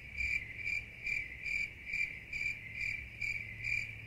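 Crickets chirping in an even rhythm, a little over two chirps a second, over a low steady hum.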